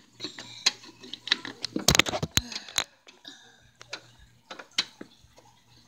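Handling noise from small plastic toys and props being moved and set down: scattered clicks and taps, with a few louder knocks about two seconds in.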